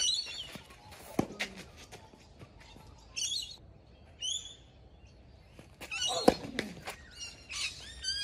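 Tennis ball struck by a racket twice, about five seconds apart, the second hit the louder, with birds chirping in short bursts between and after the hits, a quick run of chirps near the end.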